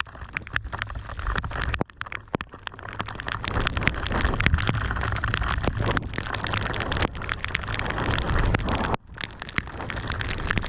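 Heavy rain and wind rushing over a GoPro Hero 5 Black's microphone as a mountain bike descends wet asphalt, with many sharp raindrop taps on the camera. The rush grows louder over the first few seconds and dips briefly twice.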